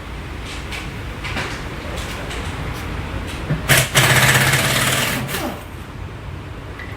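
Pneumatic impact wrench rattling in one loud burst of about two seconds midway through, winding down at the end, over a steady low hum.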